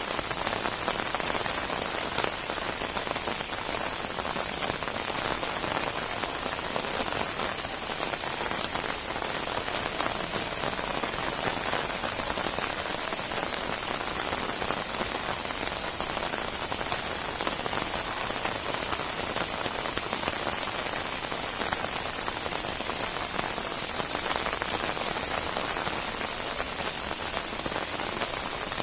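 Steady heavy rain falling on a surface, a dense even hiss with fine drop patter throughout.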